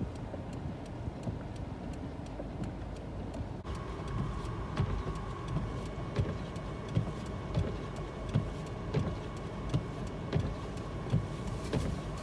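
Steady low rumble of a vehicle and blizzard wind. About four seconds in the sound changes abruptly: a steady high tone comes in, over a run of light, evenly spaced clicks and short low thumps.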